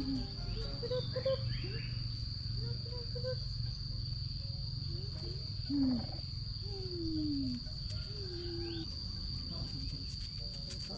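Steady high-pitched drone of insects, crickets or cicadas, over a low background rumble, with a few short falling whine-like calls about halfway through.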